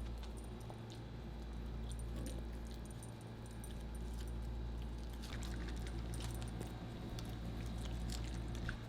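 A dog chewing a piece of peach, with scattered small clicks and metallic jingling over a steady low hum.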